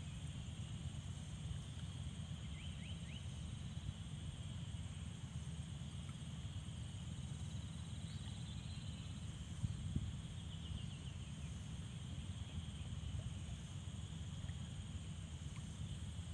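Steady outdoor insect chorus, a continuous high buzzing, over a low rumble. A few short chirps come in a couple of seconds in and again about ten seconds in, with one brief knock just before the second set.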